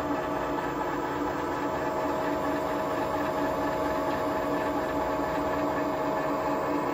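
Aciera F3 milling machine running with its mechanical power feed driving the table: a steady mechanical hum with several steady whining tones from the drive and feed gearing.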